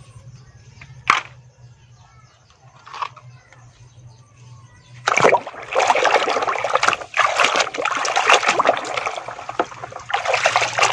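Water splashing and running over a muddy toy truck as it is washed, starting loudly about halfway through after a quieter stretch with a single sharp knock about a second in.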